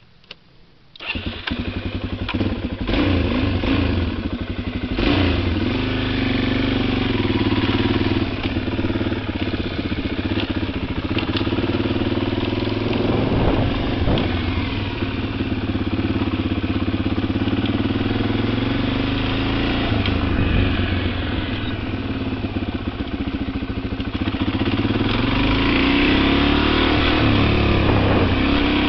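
Suzuki DR-Z400E's single-cylinder four-stroke engine starting about a second in, then running and revving as the dirt bike rides off, its pitch rising and falling and getting louder near the end.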